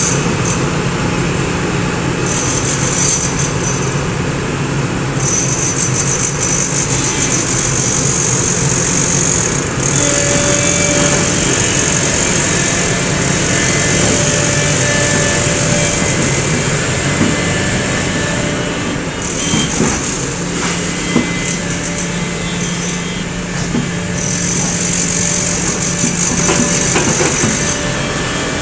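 SANY crawler excavator's diesel engine running steadily under load with a thin hydraulic whine as the machine digs in mud. A high hiss comes and goes in stretches of several seconds over it.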